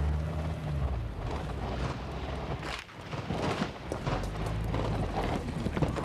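Gunfire: an irregular string of sharp cracks and bangs, with a vehicle engine fading out in the first second.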